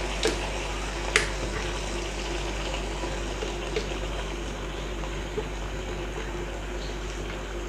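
Chicken pieces sizzling softly in hot oil in a wok as a thick, wet blended paste of yogurt, tomato, onion and garlic is poured and scraped onto them from a plastic blender jug, with a few light knocks of the silicone spatula against the jug.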